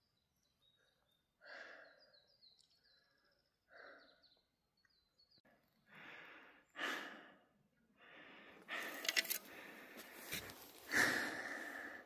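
Several short audible breaths or sighs from a person, with faint bird chirps at first. From about eight seconds in, the rustle and crunch of footsteps through dry leaf litter and brush.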